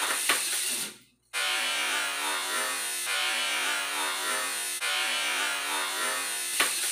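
Tamiya Mini 4WD car running laps on a plastic track, its small electric motor and gears buzzing steadily along with the rattle of the car on the track. The sound cuts out abruptly for a moment about a second in, then carries on.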